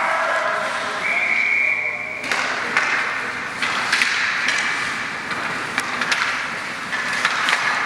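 Referee's whistle blown once, a steady shrill tone lasting about a second, then scattered sharp clacks of hockey sticks and puck over the rink's background chatter.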